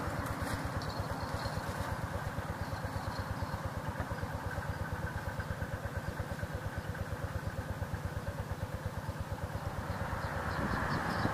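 A small engine running steadily at idle, with an even, fast low thudding beat of about ten beats a second.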